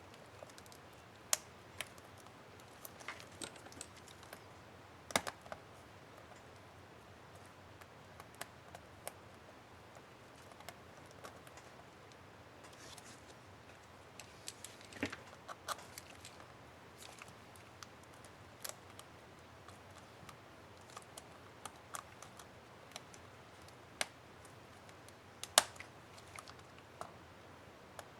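Scattered small plastic clicks and snaps from a laptop Shift key cap and its retainer clips being handled on an HP ENVY 15-j000 keyboard, coming at irregular intervals, with the sharpest snap near the end.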